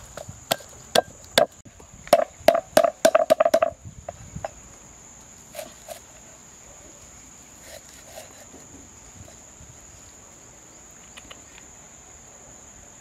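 Knife chopping on a wooden stump block: a quick run of about a dozen sharp strikes in the first four seconds, then a few lighter, scattered cuts. A steady high-pitched insect drone runs underneath.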